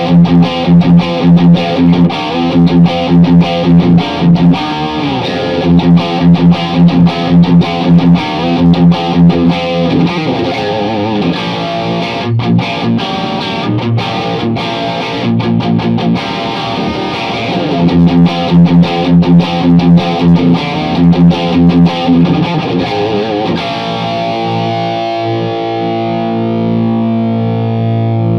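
Electric guitar played through a Tone City Golden Plexi overdrive pedal, distorted: a riff of picked notes and chords in an even pulse of about two strokes a second, turning to longer chords left to ring near the end.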